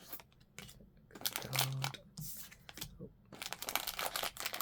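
Blind-box packaging being opened by hand: crinkling and tearing in two bursts, one about a second in and a longer one from about three seconds in.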